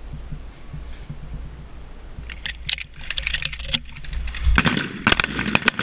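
A firing line of M1014 12-gauge semi-automatic shotguns opening up: a rapid, uneven string of sharp shots and metallic clacks beginning about two seconds in, in two close clusters.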